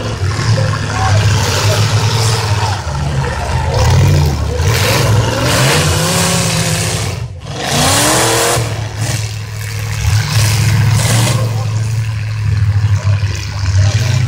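V8 engines of demolition derby cars revving hard, their pitch rising and falling as the cars accelerate and ram each other, with a noisy stretch of spinning and grinding in the middle.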